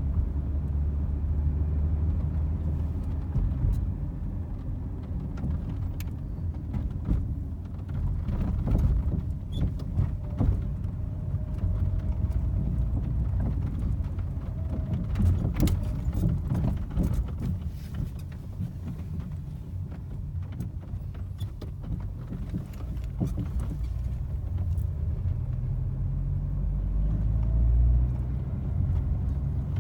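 A car running with a steady low rumble, and irregular knocks heard now and then over it.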